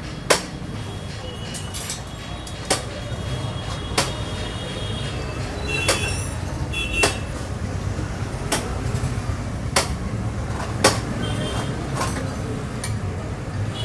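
Hand tools knocking and clinking on metal parts of a motorcycle under repair: a dozen or so sharp knocks at irregular intervals, a few ringing briefly, over a steady low rumble.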